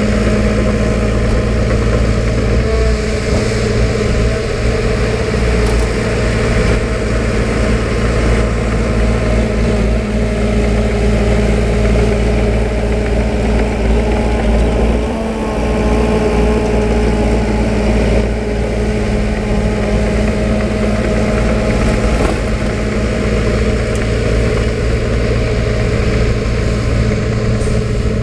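Diesel engine of heavy earth-moving machinery running steadily, a loud continuous drone.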